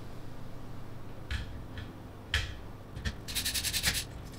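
Hands rummaging in a small plastic bag of kit hardware: a few short scratchy rustles, then a quick run of rapid scraping rattles about three seconds in.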